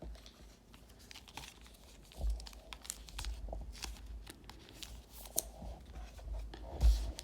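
Foil trading-card pack wrappers crinkling and tearing, with cards being handled in short rustles and light clicks, and a louder thump near the end.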